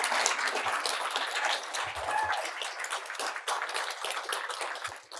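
Audience applauding, many hands clapping, the applause gradually thinning out and dying away near the end.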